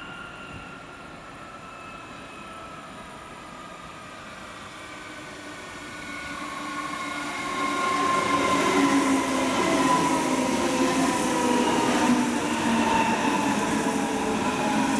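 A DB Class 423 S-Bahn electric multiple unit draws in and passes close by. Its motor whine is several tones falling steadily in pitch as it slows. The whine grows loud about seven seconds in, over the rumble of the wheels on the rails.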